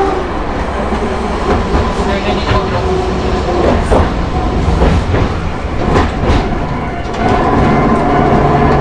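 Hankai Tramway Mo161 tram running, its nose-suspended (tsurikake) drive traction motors and wheels rumbling over the rails with a few sharp knocks from the track joints and crossing. About seven seconds in the running noise grows louder and a steady motor hum comes in.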